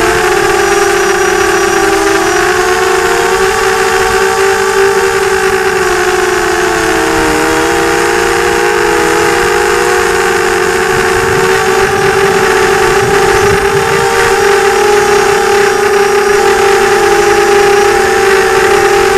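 FPV quadcopter's electric motors and propellers whining steadily, the pitch dipping and rising again a few times as the throttle changes.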